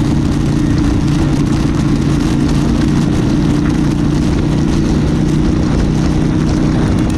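Motorcycle engine running loudly and steadily at a held speed, with a broad rushing noise over it.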